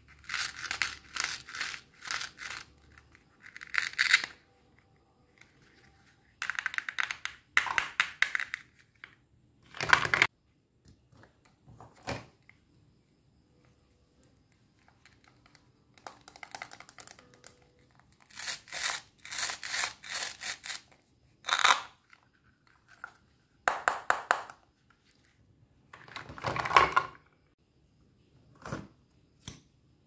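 Plastic toy cutting fruit handled and its hook-and-loop (Velcro) joined halves pulled apart and rubbed, giving repeated rasping rips. Some come in quick clusters lasting a second or two, others are single sharp rips, with short pauses between.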